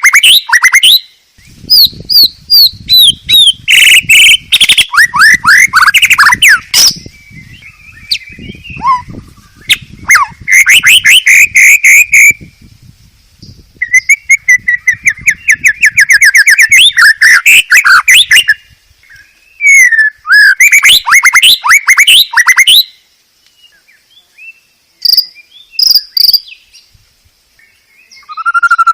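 White-rumped shama singing loudly in its cage: bursts of fast repeated sharp notes and whistled trills, broken by short pauses, with a quieter lull near the end.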